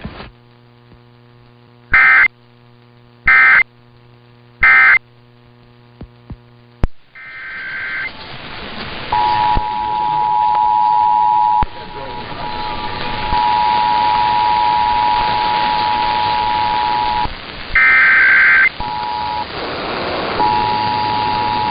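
Emergency Alert System tones. First come three short screeching SAME data bursts about a second and a half apart over a low hum. Then, amid radio hiss, the EAS two-tone attention signal runs as a steady two-pitch tone, broken by short gaps and by another data burst.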